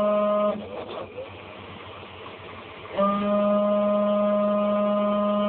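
Graphics card fan making an abnormal loud buzzing drone. It cuts out about half a second in, leaving only a soft whir, then comes back abruptly about three seconds in.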